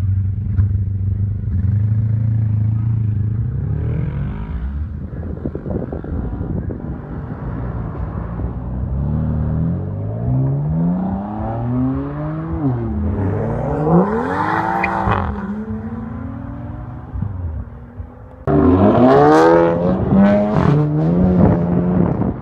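VW Golf GTI with a loud exhaust: a steady engine note, then repeated revs rising and falling in pitch. About three-quarters of the way in, a sudden louder burst of hard revving with sharp exhaust crackles and pops.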